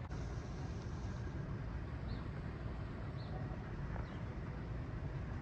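Outdoor ambience: a steady low rumble with a few faint, short bird chirps about two, three and four seconds in.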